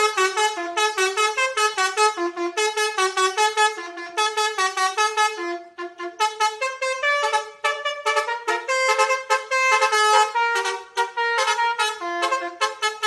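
Telolet basuri multi-tone bus horn playing a fast melody of short, bright horn notes. The tune thins out briefly about six seconds in, then carries on.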